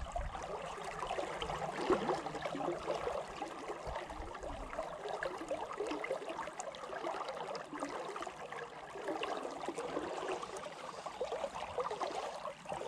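River water lapping and gurgling close by in a steady, irregular babble.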